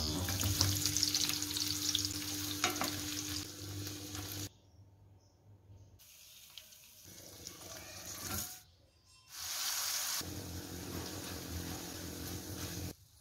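Hot oil sizzling loudly in a stainless steel frying pan as pieces of food are dropped in; it stops suddenly about four and a half seconds in. After a quieter stretch, frying sizzles again from about nine seconds on as an onion-and-tomato masala is stirred with a wooden spatula.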